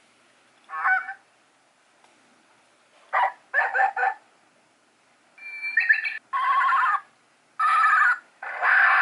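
A talking ball pet toy playing recorded animal calls through its small speaker. There is one short call about a second in, three quick calls around three to four seconds, then longer calls one after another over the last few seconds.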